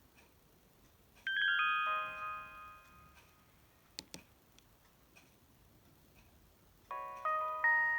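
Samsung SGH-D600 mobile phone's speaker playing two short polyphonic chime jingles, the sounds attached to its preloaded MMS templates. Each is a quick run of stepped notes that rings out and fades. A single sharp click, like a key press, falls between them.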